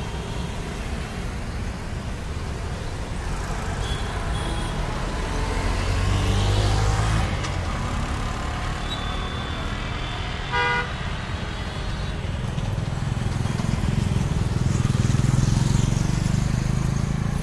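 City road traffic of cars, auto-rickshaws and motor scooters passing, a continuous engine and tyre rumble that swells as vehicles go by about six seconds in and again near the end. A short horn toot sounds a little past the middle.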